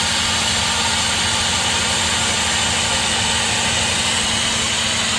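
Tormach PCNC 440 CNC vertical mill running steadily through a light facing cut about five thousandths deep, its spindle and cut making a constant machine sound with a steady hiss over it.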